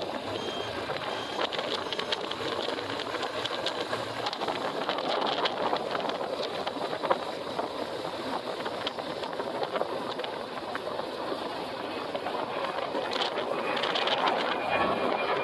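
Motorcycle engine running steadily, a little louder near the end.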